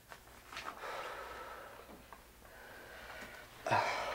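A person's breathing, ending in a sharp, louder exhale through the nose about three and a half seconds in.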